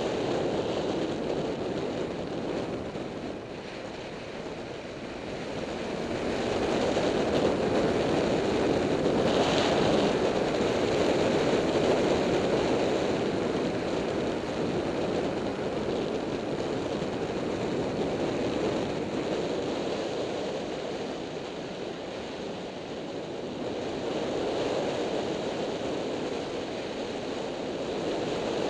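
Wind rushing over the microphone of a Yamaha FZ6-R motorcycle at road speed, with road and engine noise blended in. The steady roar dips about four seconds in, swells loudest for several seconds after that, and eases again later on.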